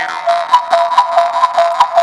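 Khomus (Yakut jaw harp) played with quick rhythmic plucks, about five a second, over a steady twanging drone, its overtone melody stepping between two notes.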